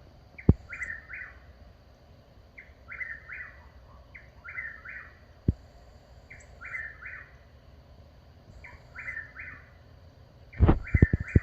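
A bird calling a three-note phrase over and over, about once every second and a half. A couple of sharp single clicks, then a quick run of loud knocks near the end.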